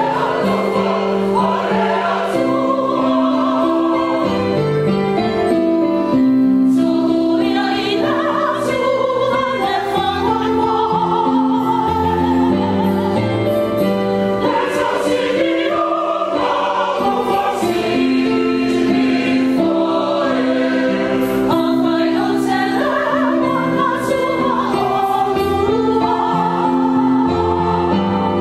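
A church choir singing a Samoan hymn in several-part harmony, the voices holding long notes over a steady low bass line.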